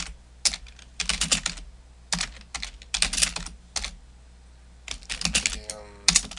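Computer keyboard typing: quick runs of keystrokes with short pauses between them, and a gap of about a second around four seconds in.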